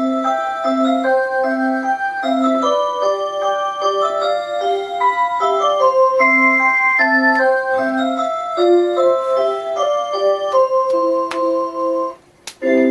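Musical clock playing a built-in electronic melody of clear, sustained notes. About twelve seconds in the tune stops, and after a brief pause the next song begins.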